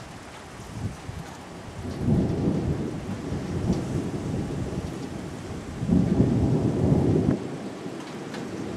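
Thunder rolling during a thunderstorm. A low rumble builds about two seconds in, swells loudest around six to seven seconds, then falls away abruptly.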